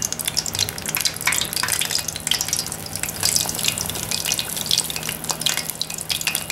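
Hot oil bubbling and crackling around aloo pies (potato-filled dough) deep-frying in a cast-iron pot: a dense, continuous patter of sharp little pops and sizzle.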